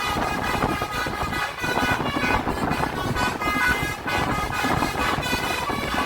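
Tour bus's basuri telolet horn playing a tune of quickly changing horn notes, over road and engine noise.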